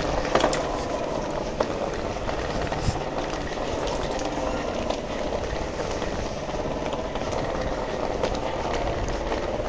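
Steady hum and rumble of a Dubai Metro train standing at the platform, heard through the station, with a few light knocks from hurried footsteps or the handheld phone.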